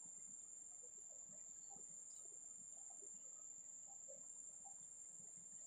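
Near silence: a faint, steady high-pitched tone, with a few soft clicks scattered through it.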